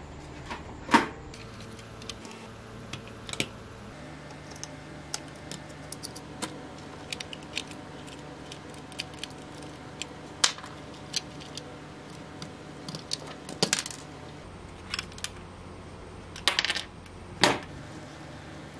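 Scattered small clicks, taps and knocks of hard plastic RC car parts being handled as the body shell comes off and the chassis is worked on. The sharpest knock comes about a second in, with small clusters of clicks near the end.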